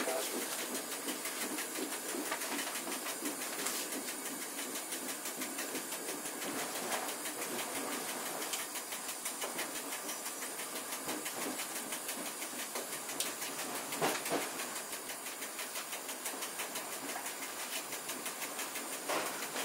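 Inside the driving cab of a double-deck passenger train on the move: a steady running noise and hiss, with a few sharp wheel clicks over the track.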